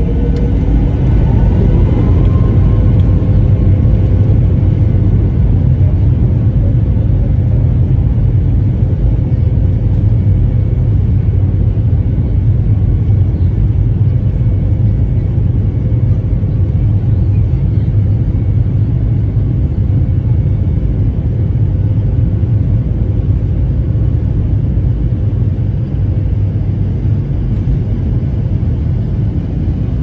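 Airliner noise heard inside the cabin during the landing roll: a loud, steady rumble of engines and wheels on the runway, with an engine whine rising about a second in.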